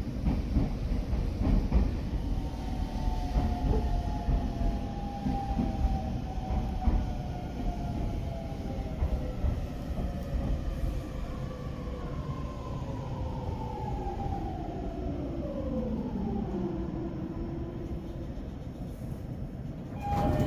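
E231 series 800 commuter train braking into a station, heard from inside the car: the whine of its VVVF inverter traction motors falls steadily in pitch over a low running rumble. It levels off and dies away as the train comes to a stop near the end.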